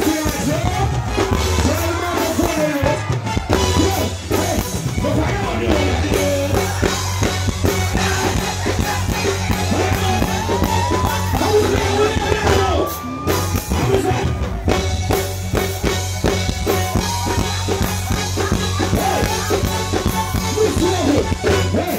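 Live reggae band playing through a stage sound system, with a male vocalist singing into a microphone over steady drums and bass.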